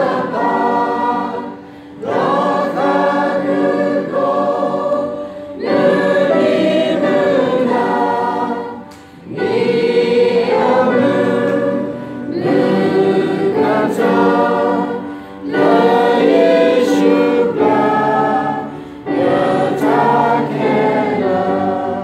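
Church congregation and choir singing a hymn together, in sung phrases of a few seconds each with short breathing pauses between them.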